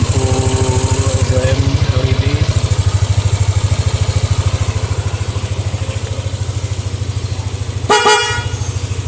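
Yamaha Lexi scooter's single-cylinder engine idling with a steady rapid pulse, and near the end one short honk from an aftermarket Denso snail horn, the loudest sound.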